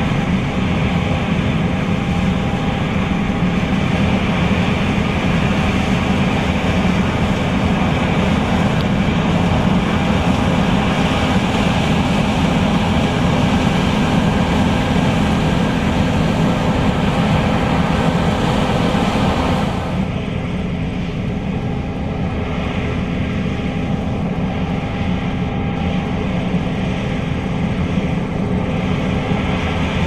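A John Deere S660 combine harvesting soybeans, its engine and threshing machinery running in a steady drone. About two-thirds of the way through, the sound turns duller and slightly quieter.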